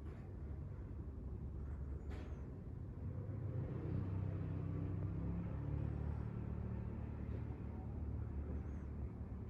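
Low, steady rumble like a vehicle engine, swelling a few seconds in and then easing off, with a faint tick about two seconds in.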